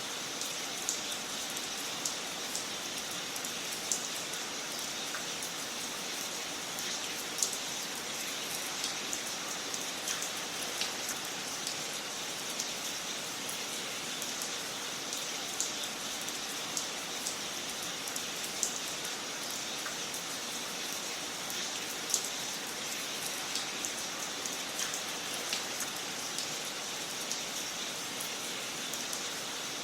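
Wood fire crackling in a fireplace: a steady hiss with many small, sharp pops and snaps at irregular moments.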